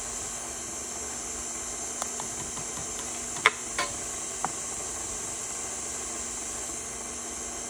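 KitchenAid Artisan stand mixer running steadily on low speed with the dough hook, mixing flour into the liquid at the start of a bread dough. A few short knocks come in the middle, the sharpest about three and a half seconds in.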